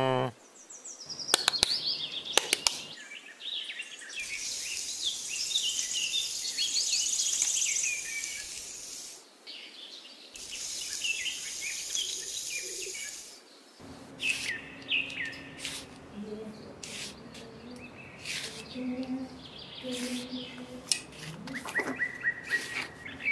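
Birds chirping and twittering over a steady high hiss through the first half. About 14 seconds in, a small metal trowel starts scraping and scratching in sand in short strokes, with a few chirps still heard.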